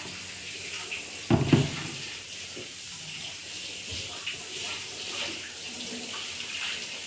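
Kitchen tap running into a stainless steel sink as dishes are rinsed, a steady hiss of water, with one loud thump about a second and a half in.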